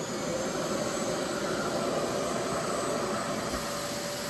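RevAir reverse-air hair dryer running, its motor pulling hair into the wand by suction with a steady rush of air and a faint steady hum.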